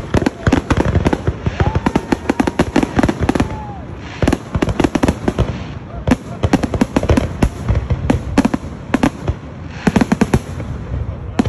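A dense barrage of aerial fireworks shells bursting, many sharp bangs and crackles in quick succession, coming in several waves with brief lulls between them.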